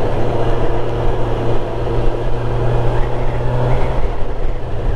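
Motorcycle engine running steadily under way, with wind and road noise; the engine note eases a little lower about four seconds in.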